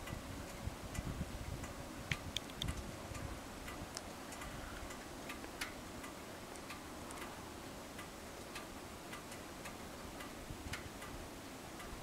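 Faint, irregular ticking and clicking over a low, steady background hiss.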